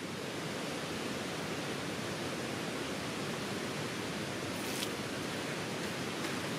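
Steady rushing outdoor noise, like wind or rain in the forest, with a faint brief rustle a little before the end.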